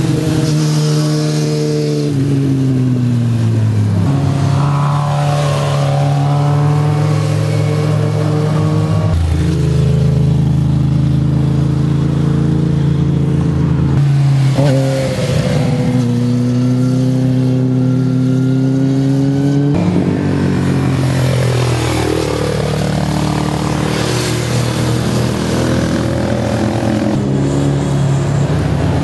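Sport motorcycles riding past one after another through a bend. The engines drop in pitch as the bikes slow into the corner, hold steady, then rise again as they accelerate away.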